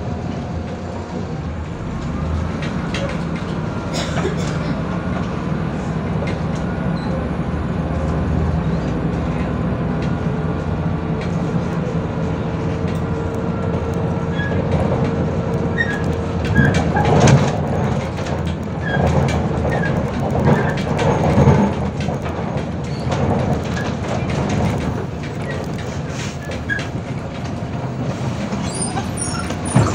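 MAZ 105 articulated city bus riding along, heard from inside: the steady hum of its diesel engine and drivetrain with a thin whine over it. About halfway through come several seconds of loud rattling and knocking from the body.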